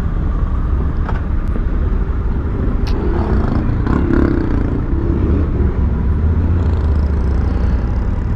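Honda Africa Twin motorcycle being ridden: a steady low rumble of the engine and wind on the helmet microphone, with a few faint clicks.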